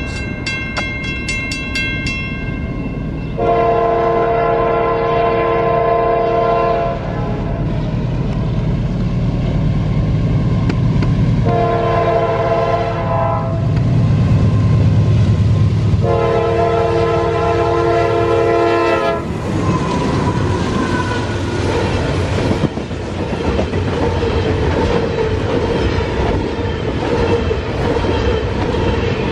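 Norfolk Southern diesel locomotives sound the horn as they approach with a loaded coal train: a long blast, a short one and another long one, over a growing engine rumble. About nineteen seconds in the locomotives pass, and the loaded coal hopper cars follow with a steady clickety-clack of wheels over the rail joints.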